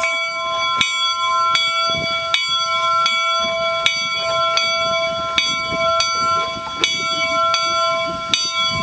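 Steam locomotive's bell ringing steadily, one clang about every three quarters of a second, each stroke ringing on into the next.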